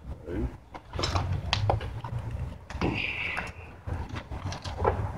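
Scattered clicks and knocks of metal hand tools being handled, over a low hum, with a short high-pitched tone about three seconds in.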